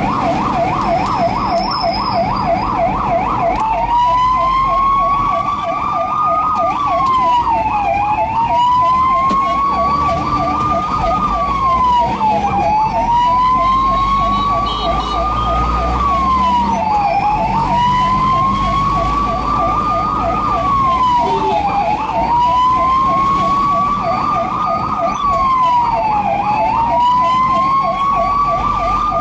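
Ambulance electronic siren heard from inside the cab over engine and road rumble. It starts as a fast warbling yelp, then about three seconds in switches to a slow wail that rises over a few seconds and drops quickly, repeating about every four and a half seconds, with the fast warble still faint beneath.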